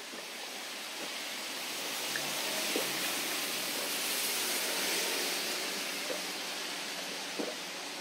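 Coca-Cola fizzing in a cup held to the drinker's mouth during a long chug: a steady hiss that swells a little toward the middle, with a few faint small ticks.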